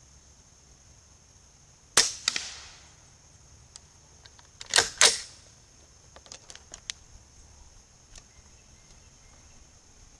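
Suppressed AR-15 rifle firing subsonic 55-grain handloads: one sharp, flat report about two seconds in, then two in quick succession near the middle, followed by a few faint clicks. Insects keep up a steady high buzz.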